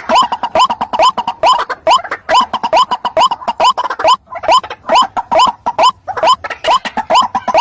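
White-breasted waterhen (ruak-ruak) croaking call: a rapid run of short notes, each rising in pitch, several a second without a break. It is a recording of the kind played as a lure to trap the bird.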